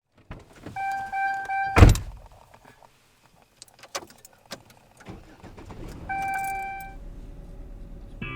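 Car sounds: a warning chime beeps three times, then a door slams shut with a loud thud. Clicks and small knocks follow, then a longer chime, over a low steady engine rumble that comes up about five seconds in.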